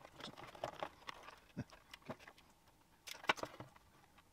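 Scattered light clicks and small metallic knocks of a metal ECU casing and circuit board being handled and fitted together, with a louder cluster of clicks about three seconds in.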